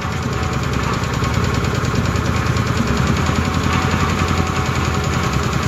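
Small gasoline engine of an Ingersoll Rand gas-driven air compressor running steadily with no load on it yet, just after starting.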